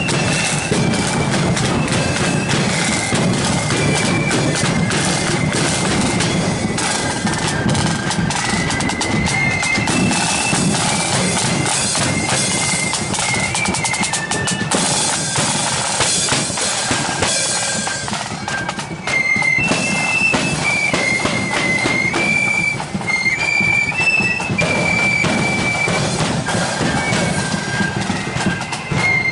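Marching flute band playing a tune: a high flute melody stepping from note to note over snare drums and a bass drum.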